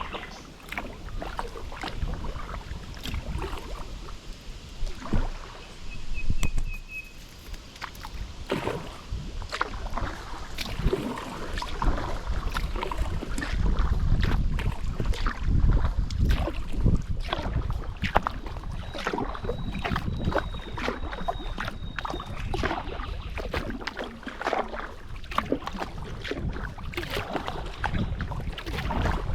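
Kayak paddling: the paddle dipping and splashing, water dripping off the blades in irregular strokes, over a low rumble of wind on the microphone.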